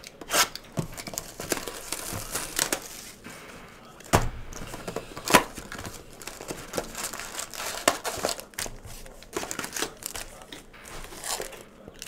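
Wrappers of Panini basketball card packs crinkling and tearing as hands handle and open them: a string of irregular sharp crackles and clicks.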